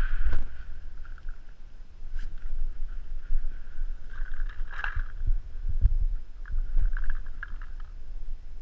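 Low rumble of a head-mounted action camera moving with the player, with a few scattered sharp pops from paintball markers firing.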